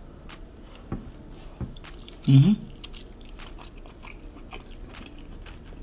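Close-miked eating: biting into and chewing soft, sauce-covered seafood-boil shellfish meat, with small wet mouth clicks. A brief hummed voice sound comes about two seconds in.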